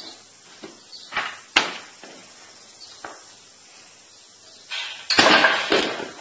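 Homemade spring-loaded lever axe splitting firewood on a chopping block: sharp knocks of the blade striking the wood, with a louder, longer burst of knocking and clatter about five seconds in.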